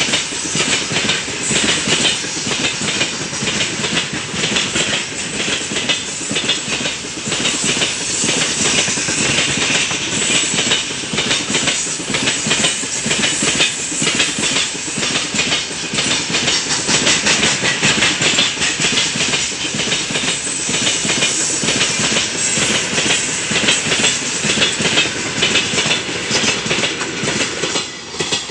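Heavy freight train of loaded open-top gondola wagons rolling past close by: a steady loud rush of steel wheels on rail with a constant run of clicks as the wheels cross rail joints. The noise drops away suddenly at the very end as the last wagon goes by.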